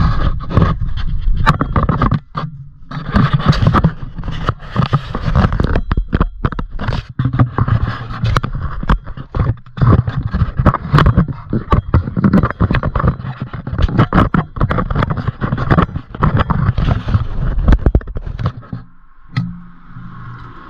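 Metal tools clanking, knocking and scraping against the front suspension: hands-on work to get the ball joint and axle apart. The noises are irregular and continuous, with a brief lull about two seconds in and another near the end.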